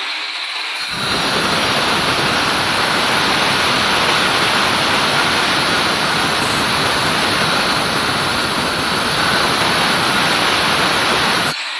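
Angle grinder cutting a pipe chase into a brick wall: a loud, steady grinding rush. It is thinner at first, fills out about a second in as the disc bites into the brick, and thins again near the end as the cut eases off.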